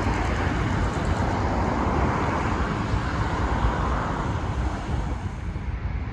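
Street traffic noise, swelling and fading as a vehicle passes in the middle, over a steady low rumble.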